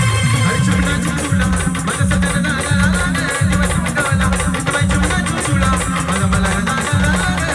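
Loud band music: a heavy bass beat about two a second under a wavering melody line, with shaker-like percussion ticking over it.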